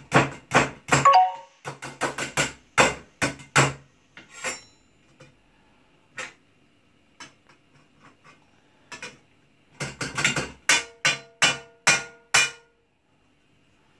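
Sharp knocking on an upturned aluminium manti steamer tier set on a plate, to loosen the steamed manti. It comes in two runs of about three knocks a second: one in the first four seconds and another about ten seconds in, where the knocks ring like metal.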